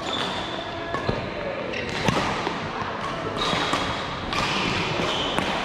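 Sports shoes squeaking on an indoor court floor as players move, with two sharp hits about one and two seconds in.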